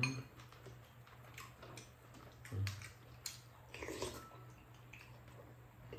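Eating sounds: spoons and chopsticks clicking and scraping against ceramic bowls, with chewing and wet mouth sounds, in scattered short clicks.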